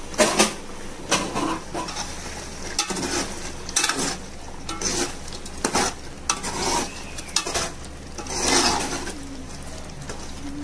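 Steel ladle stirring marinated mutton in thick masala in a stainless steel pot: irregular clinks and scrapes of metal on metal, with a longer scrape about eight seconds in.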